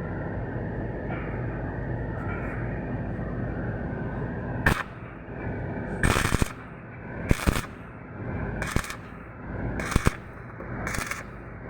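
Steady machine noise, then from about halfway through a run of short, crackling electric welding arc bursts, roughly one a second, like a welder striking quick tack welds.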